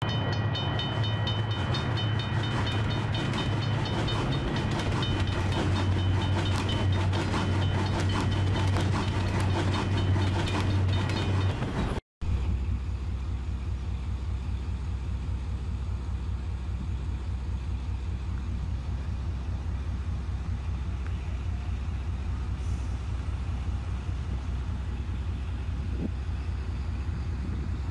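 For the first twelve seconds a train sound effect plays: a steady low hum with a rapid clicking beat and ringing high tones. After a brief drop-out, a diesel-hauled container freight train runs past, a steady low rumble with a fast even pulse.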